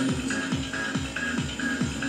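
Electronic dance music with a steady kick drum about twice a second and a short repeating synth note, played through the speakers of a Kaisui HF-1000 boombox.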